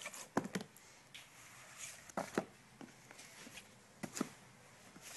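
Books being handled on a wooden table, shifted aside one after another: a few soft knocks and rustles in pairs.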